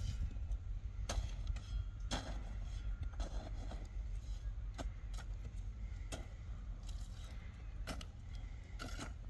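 A small hand hoe chopping into dry, loose soil around a newly planted mango sapling, with sharp, irregular strikes roughly once a second over a steady low rumble.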